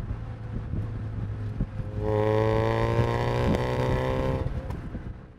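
Mazda MX-5 engine running on the move with the top down, with wind and road noise. About two seconds in, the engine note strengthens into a steady, higher drone that holds for a couple of seconds, then eases off and fades out near the end.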